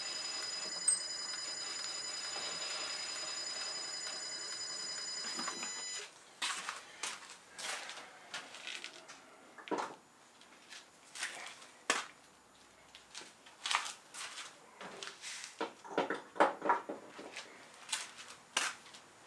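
Metal lathe running steadily while turning a miniature petrol engine crankshaft, switched off about six seconds in. After that, a scattering of short light metallic clicks and knocks.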